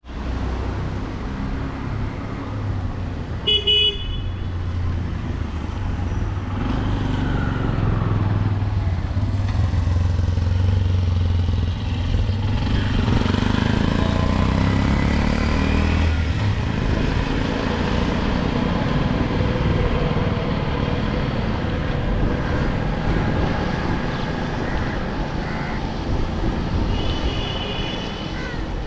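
City street traffic, engines and tyres making a continuous rumble, with a vehicle horn tooting briefly a few seconds in and again near the end.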